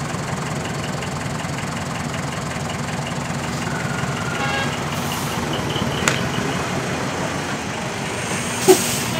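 Large truck diesel engine idling steadily with a low, pulsing rumble. There is a faint click about six seconds in and a short, sharp burst near the end.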